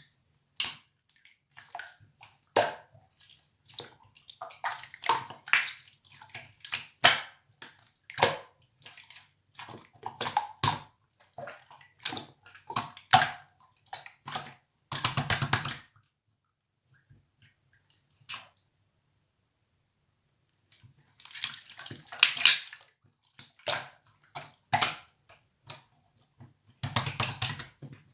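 Clear slime being pressed and squished by hand: irregular runs of wet clicks and small pops of trapped air. There is a dense burst about halfway through, then a pause of a few seconds before the squishing starts again.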